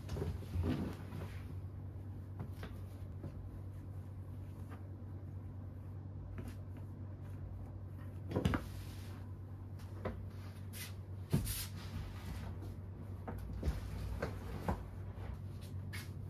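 A handful of sharp knocks and clunks from furniture being handled, over a steady low hum in a small room. The loudest knocks come about halfway through.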